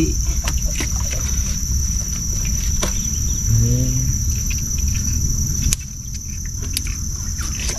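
Steady high-pitched insect chorus from the riverside forest, with a low rumble underneath and a few sharp knocks scattered through.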